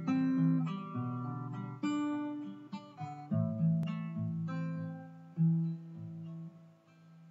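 Acoustic guitar music: a slow run of picked notes and chords, dying away near the end.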